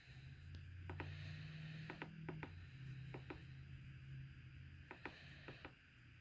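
Keys on a Cisco 9851 desk phone being pressed: about ten sharp plastic clicks, several in quick press-and-release pairs, over a low steady hum.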